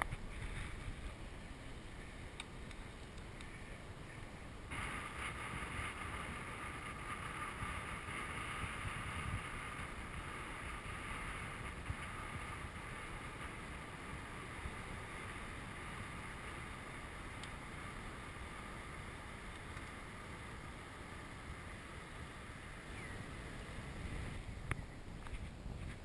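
Wind rushing over the microphone of a camera riding on a moving bicycle, with a steady low rumble from the tyres on the road. About five seconds in, the sound turns brighter with a steady hiss that fades near the end.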